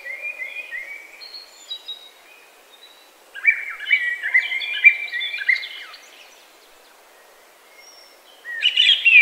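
Songbirds singing in woodland: quick runs of high chirping notes in three bouts, at the start, from about three and a half seconds in to six seconds, and again near the end.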